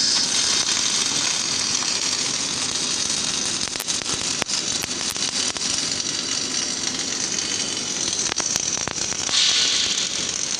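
MAG welding arc from an automatic tube-to-tubesheet welder, crackling and hissing steadily, with scattered sharp pops and a louder stretch of hiss near the end.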